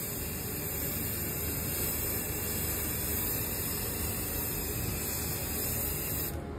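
Aerosol can of grey primer spray paint hissing steadily as it sprays, cutting off near the end.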